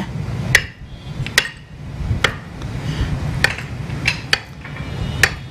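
Knife blade knocking against a plate as it cuts through peeled bananas: about seven sharp clicks at uneven intervals.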